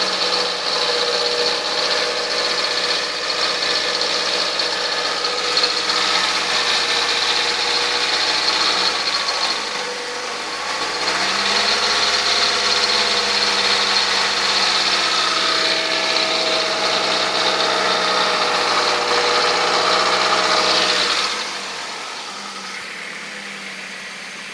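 Kia Rio JB engine running at idle with a steady high-pitched whine over the engine note: a strange noise the owner cannot place, which may come from the belt tensioner, the drive belts or the water pump. The engine speed dips briefly about ten seconds in, and near the end the engine note drops away and the sound gets quieter.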